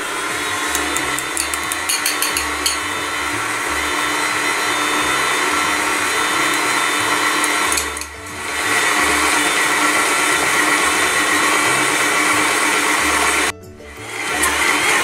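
Electric stand mixer running steadily as it mixes a crumbly biscuit dough while beaten egg yolks are added, its motor having just been switched back on. The sound breaks off suddenly twice, about halfway through and near the end.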